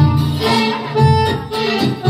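Belly-dance music with a melody over a heavy, pulsing low beat.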